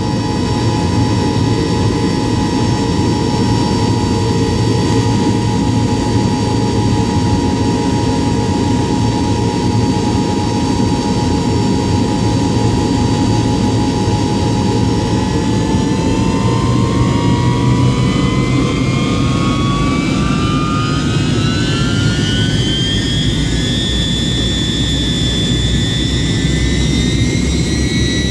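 Tupolev Tu-154M's Soloviev D-30KU-154 turbofan engines heard from inside the cabin beside the rear engine nacelle. A steady whine over a low rumble turns, about halfway through, into a rising whine as the engines spool up to takeoff power.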